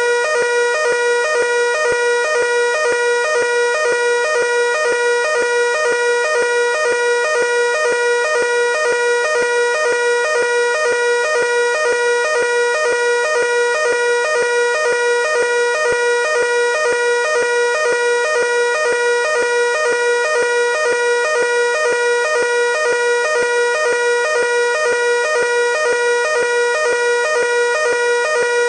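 Fire alarm evacuation signal sounding continuously: a steady two-tone pattern, a short higher tone then a longer lower one, repeating about twice a second. It matches the French standard NF S 32-001 evacuation tone.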